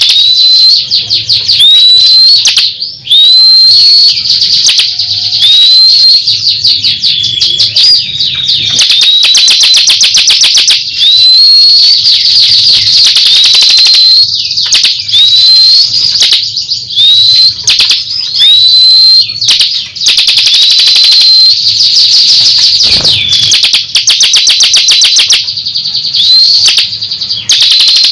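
Songbird singing loudly and without pause: rapid chattering trills broken every second or two by short rising whistled notes.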